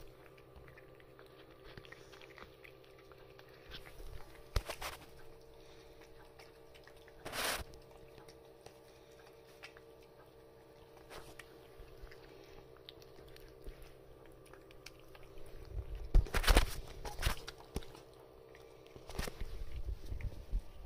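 Cats eating wet cat food from plastic bowls, with faint wet chewing and small clicks. A steady low hum runs underneath, and a few louder knocks stand out, the loudest cluster about three-quarters of the way through.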